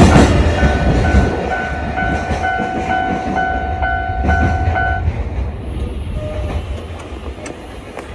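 Japanese level-crossing alarm ringing its standard electronic clang about twice a second, cutting off about five seconds in. Underneath, the low rumble of a passing freight train fades away.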